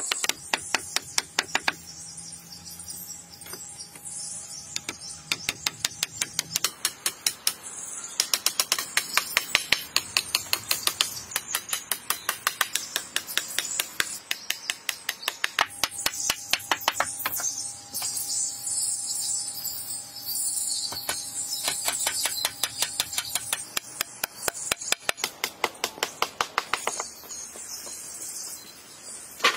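Hatchet blows on wooden logs, sharp knocks coming several a second in long runs, with a few sparser pauses. A high steady buzz of insects runs underneath.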